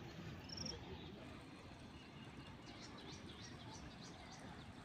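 Faint outdoor ambience: a low background rumble with high chirping. There is one short, high, steady note about half a second in, then a quick run of descending chirps from roughly two and a half to four and a half seconds.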